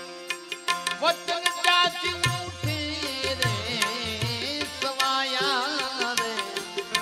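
Devotional bhajan music: a harmonium holds chords under steady clicks of small hand cymbals. A man's voice comes in about a second in with one long, wavering, ornamented sung line, and a hand drum starts beating soon after.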